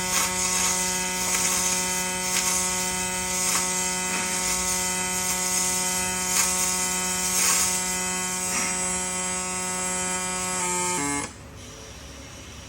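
Robotic arc welding: the welding arc buzzing steadily over a crackling hiss, then cutting off abruptly about eleven seconds in, leaving a quieter background hum.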